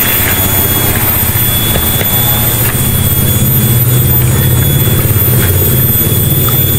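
Steady low engine drone that holds an even pitch.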